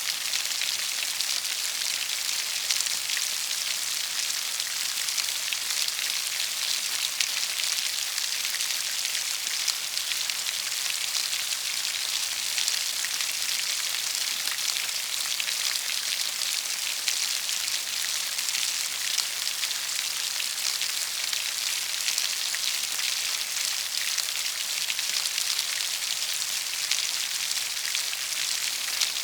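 Rain falling steadily: an even, high hiss of many fine drops, unchanging throughout.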